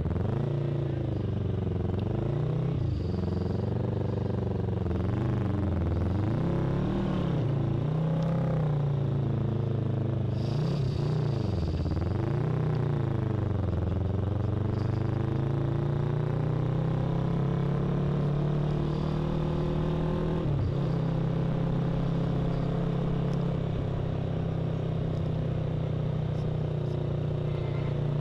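Yamaha YZF-R3's 321 cc parallel-twin engine under way. Its pitch rises and falls again and again through the first half as the throttle opens and closes, then it runs at a steadier pitch, with one brief dip about two-thirds of the way in.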